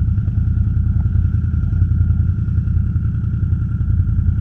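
ATV engine running steadily at low revs: a low rumble with a faint steady whine above it.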